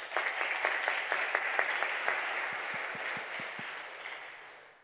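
Audience applauding, a dense patter of many hand claps that slowly dies away near the end.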